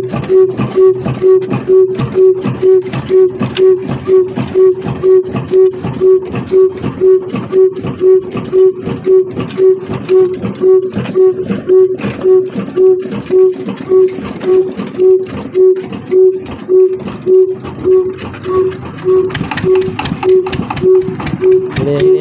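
Old Ruston Hornsby single-cylinder diesel engine running steadily at slow speed, a regular beat of a little over two firing strokes a second with a ringing note on each beat.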